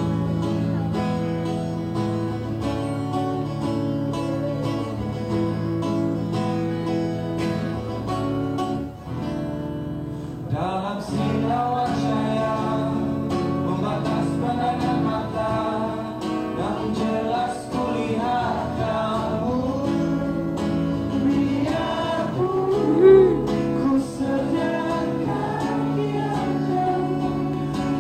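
Live acoustic song: acoustic guitar playing alone, then a male voice starts singing about ten seconds in over the guitar.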